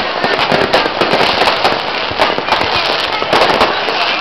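Many firecrackers and fireworks going off at once: a dense run of overlapping bangs and crackles with no pause.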